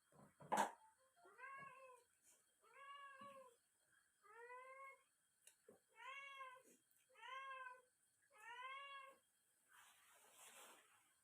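A cat meowing over and over: six short meows, each rising and then falling in pitch, about one every second and a half. A sharp click comes just before the first meow, and a brief noisy rustle comes near the end.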